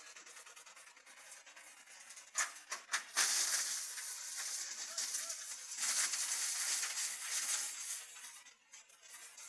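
Drum wood chipper chipping wood: a few sharp cracks, then about five seconds of dense rattling hiss as the chips are cut and thrown out, fading near the end.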